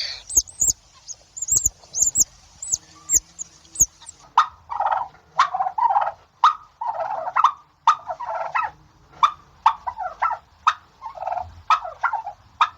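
A small bird chirping in quick, high, thin notes for the first four seconds. Then a domestic fowl calls over and over in short, clucking bursts, about one or two a second.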